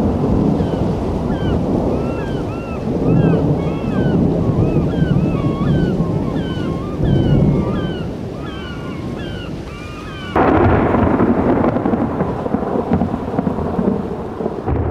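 Thunder rumbling through a rainstorm, rising and falling in rolls, with repeated short high chirps over it. About ten seconds in, the sound switches abruptly to a louder, rougher rush.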